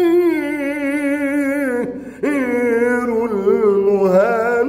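A solo man's voice singing an Arabic nasheed unaccompanied in maqam hijaz, drawing out long ornamented notes without words. A long held note wavers in pitch, breaks off for a breath about two seconds in, then a new phrase rises into quick trills.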